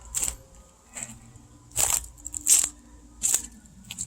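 A series of short, sharp crunches, about five in four seconds at uneven spacing, the loudest about halfway through.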